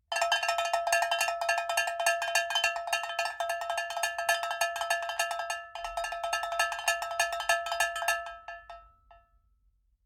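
A bell-like metallic tone struck rapidly and repeatedly at a steady pitch. It breaks off briefly a little past halfway, resumes, then stops and rings out near the end.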